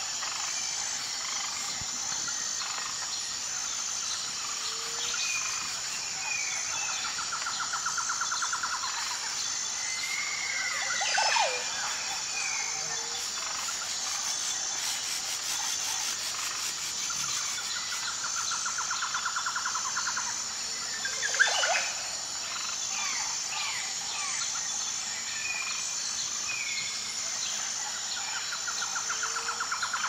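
Tropical forest ambience of birds and insects: a steady high insect chorus with a note pulsing about every second and a half, scattered bird chirrups and whistles, and a buzzing trill that comes back about every ten seconds. A loud call sweeps sharply down in pitch about 11 seconds in and again about 21 seconds in.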